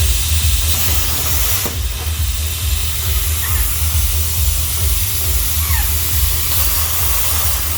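DIY CNC plasma cutter running: a steady hiss of air from the torch, with a strong low buzz that comes in abruptly at the start and carries on throughout.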